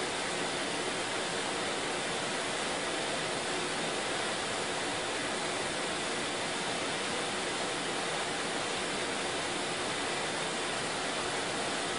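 Steady, even background hiss with no change and no other sounds.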